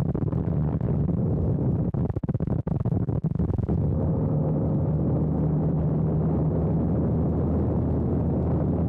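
Aerobatic biplane's engine and propeller running with wind rushing over the microphone: a steady low drone. The sound drops out briefly several times about two to three seconds in.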